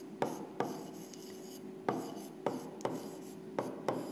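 Stylus tapping and scratching on the glass screen of an interactive whiteboard while writing: about seven sharp taps with faint scraping between them as each stroke goes down.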